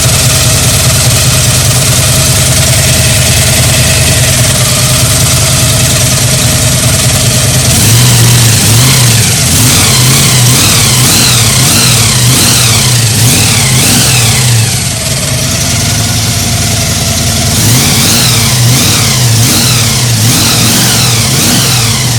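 Supercharged Chevy V8 with an 8-71 Roots blower idling steadily, then revved in quick repeated throttle blips from about eight seconds in, the pitch climbing and falling again and again. It settles briefly near the middle, then the revving resumes.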